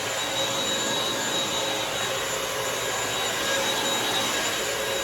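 Bissell CrossWave wet-dry floor cleaner running steadily, its suction motor giving a constant rushing noise with a high whine.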